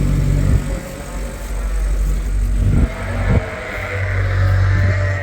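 A low, steady mechanical hum, like an engine or motor running, that shifts to a different steady pitch about three and a half seconds in. Two short knocks come just before the change.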